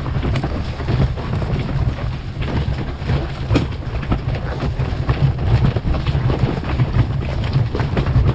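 Fishing-tackle trolley wheels rolling over a gravel track, a continuous low rumble with scattered clicks and rattles, picked up through a camera mounted on the trolley itself.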